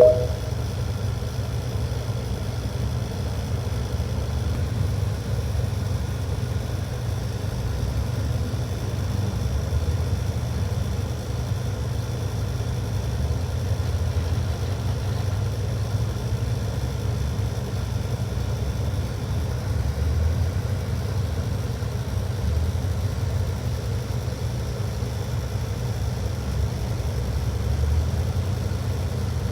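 Old excavator's diesel engine running steadily, a low, even engine sound with no changes in pitch.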